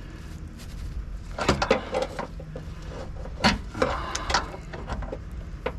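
Hand tools knocking and scraping on a car's exhaust hanger as a rubber exhaust bushing is forced over the bulb on the hanger rod. The sharp knocks are irregular, the loudest about one and a half seconds in and again about three and a half seconds in.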